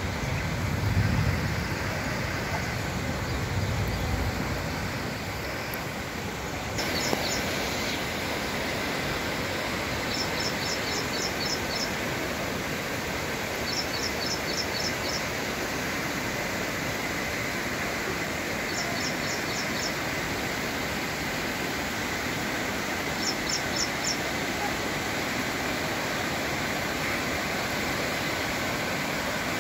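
Steady rush of heavy rain and fast-flowing floodwater, with a low rumble of thunder in the first few seconds. Short runs of high, rapid chirps come and go several times over the rushing.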